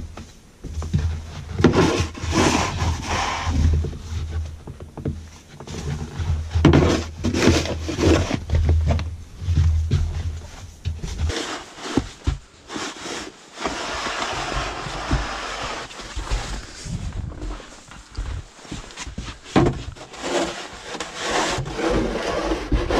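Snow shovel scraping along snow-covered wooden deck boards in repeated pushing strokes, with knocks as the blade hits the boards and snow is tossed.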